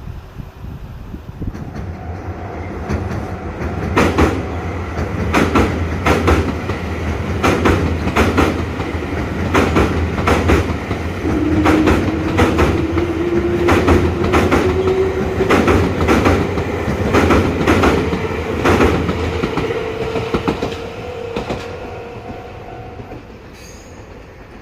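Nankai Main Line electric train passing over a level crossing. Its rumble builds from about two seconds in, the wheels clack over rail joints for about fifteen seconds, and a whine rises in pitch through the second half before the sound fades.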